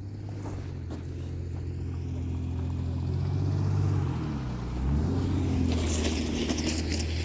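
A motor vehicle's engine running close by with a low, steady hum that grows louder over the first few seconds. Its pitch dips and comes back up about four to five seconds in.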